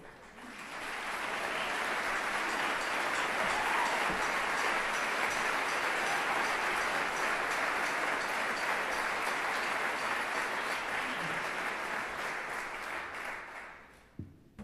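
Audience applauding, swelling up over the first second or two, holding steady, then dying away near the end, with a short knock just after it fades.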